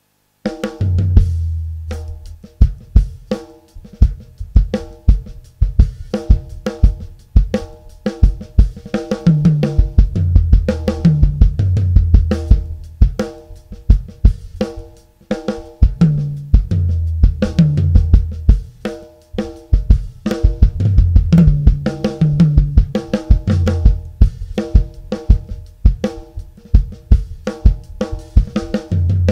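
Custom Kyre drum kit with a 20-inch bass drum, 14-inch floor tom, 10-inch rack tom and 14-inch snare, played as a steady groove on kick, snare and cymbals. Low tom notes ring out in fills every few seconds.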